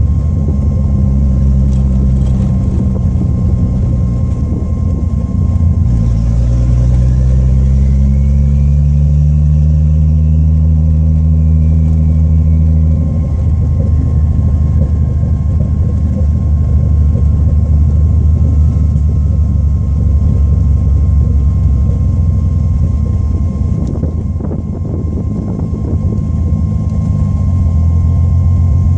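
Turbocharged 12-valve VR6 with an open downpipe, heard from inside the cabin while driving. The engine note climbs for several seconds under acceleration, drops suddenly near the middle, then holds steady at cruise.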